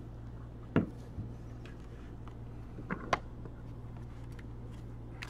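A few sharp clicks and knocks on a desk over a steady low electrical hum: a single loud knock about a second in, and a quick pair of clicks about three seconds in.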